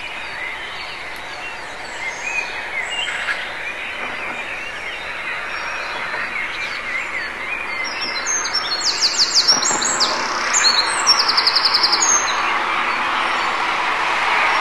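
Dawn chorus of many songbirds chirping and calling. About eight seconds in, one bird close by sings a loud, high song of fast trills for about four seconds. A steady hiss of distant traffic grows louder toward the end.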